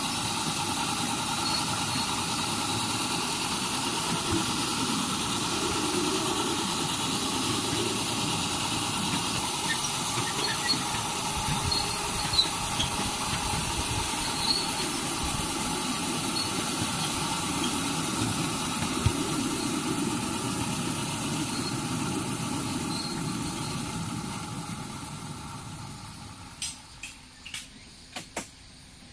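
Ride-on miniature park railway train running along its narrow-gauge track: a steady rumble of wheels on rail with a faint whine and an occasional squeal. Near the end it dies away as the train slows, and a few sharp clicks sound.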